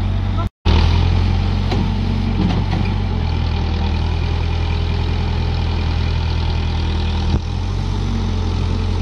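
Backhoe loader's diesel engine running steadily with a low, even drone. The audio cuts out for a moment about half a second in.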